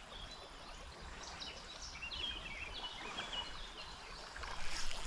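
Small birds singing short, quick phrases of stepped notes over the steady rush of river water.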